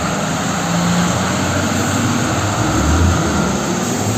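Mitsubishi Fuso tanker truck's diesel engine rumbling as the truck drives past, over a steady hiss of tyres on the wet road; the low rumble swells a little past the middle.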